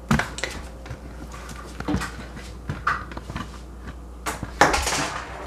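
Scattered light clicks and knocks of kitchenware and the camera being handled, with a louder clatter about four and a half seconds in.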